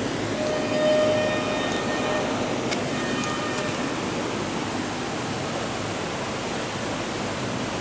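Steady rushing noise of water, with a faint steady tone during the first couple of seconds.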